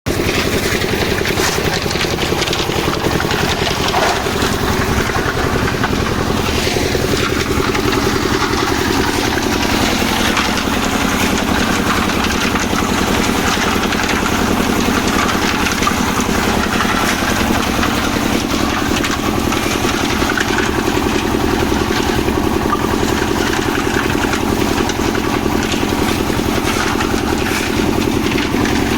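An engine running steadily at a constant speed, with a continuous low hum.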